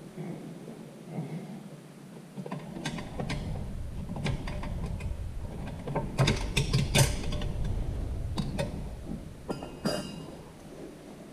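Metal parts of an automatic transmission being handled during teardown: scattered clinks and clunks, busiest a little past the middle, over a low rumble.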